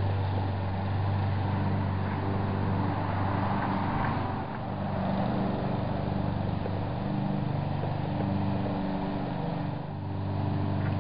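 An engine running steadily, with its note shifting about four seconds in and dipping briefly near the end.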